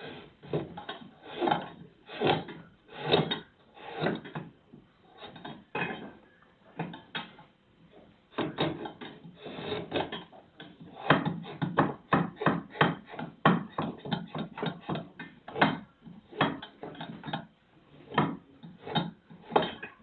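Wooden clog being shaped by hand with a clog-maker's long hinged knife, cutting stroke after stroke into fresh, wet wood. The strokes come about once a second at first and quicken to two or three a second in the middle.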